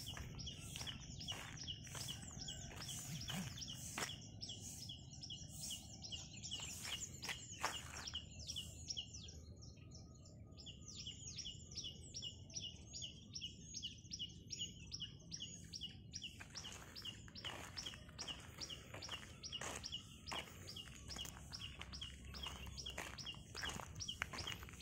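Faint outdoor ambience of birds chirping, a steady run of short, quick, high chirps several times a second over a low background hiss.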